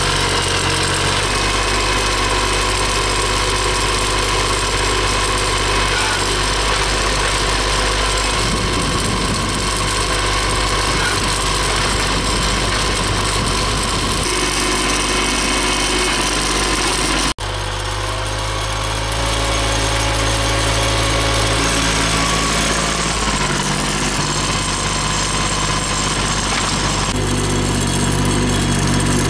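John Deere 750 compact tractor's three-cylinder diesel engine running while its front loader lifts and dumps snow. The engine note shifts several times as the loader works, and cuts out for an instant a little past halfway.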